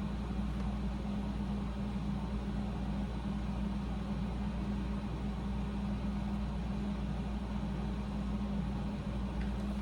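Air conditioner running steadily, a constant low hum with a strong band near 200 Hz.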